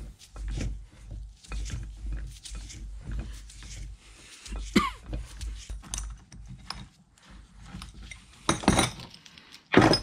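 Metal clicking and creaking as an adjustable wrench turns a gear puller's screw, drawing a press-fit bearing and seal assembly off a steel shaft, with two louder clunks near the end.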